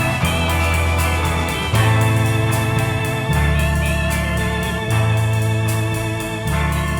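Instrumental rock passage led by a combo organ (a Vox Continental on this recording), with bass and drums beneath. The chords and bass notes change together about every second and a half over a steady cymbal beat.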